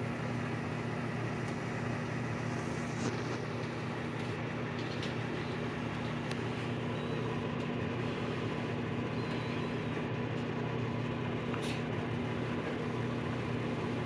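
GE Spacemaker XL1800 microwave oven running: a steady, even hum.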